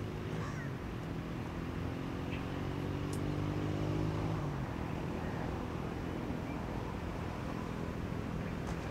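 A motor engine's steady hum, several low tones held together, which drops away about halfway through, leaving a steady background noise.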